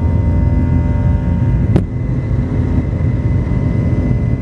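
Airliner engines at takeoff power, heard from inside the cabin during the takeoff roll and lift-off: a loud steady rumble with a faint steady whine over it. A single sharp click comes a little under two seconds in.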